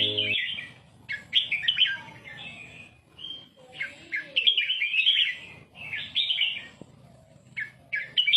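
Red-whiskered bulbul singing its 'beun' (doubled) song: about six bursts of quick, chirpy, warbling phrases, each broken by a short pause. It is the kind of song recording played to young birds so they copy it.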